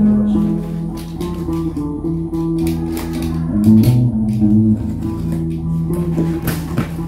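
Guitar played live in a small room: sustained low plucked notes that change every second or so. Scattered short clicks and scrapes come from a cardboard box being handled and its tape cut open.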